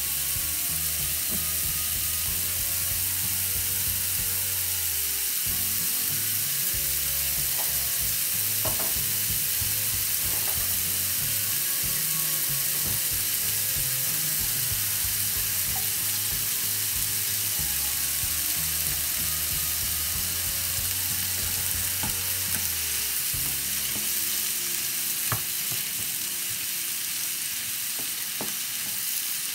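Sliced mushrooms, bell peppers and onions sizzling steadily in a frying pan, with a few small pops. A wooden spatula stirs them near the end.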